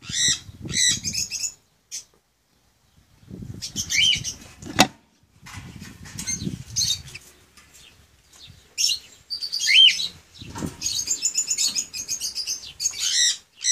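Green-cheeked conures chattering in bursts of harsh, high calls, with a short curving whistled note about four seconds in and again about ten seconds in. A single sharp click about five seconds in, with a low rumble beneath the calls.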